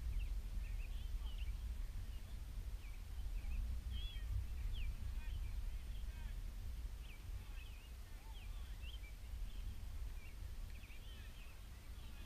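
Steady low wind rumble on the microphone, with many short, high chirps of birds scattered throughout.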